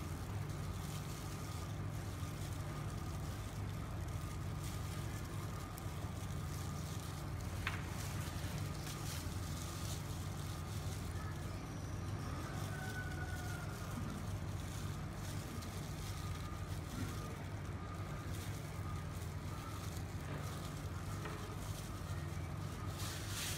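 Steady low hum of a rolled-ice-cream machine's refrigeration unit running under the cold plate, with a faint steady higher tone above it. A few soft clicks come near the end.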